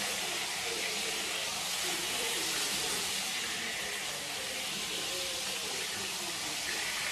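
Beef burger patties frying in a pan on a gas stove: a steady sizzle.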